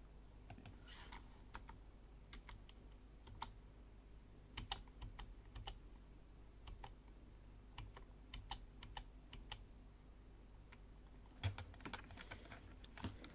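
Faint computer keyboard keys pressed one at a time at irregular intervals, with one louder knock about eleven and a half seconds in.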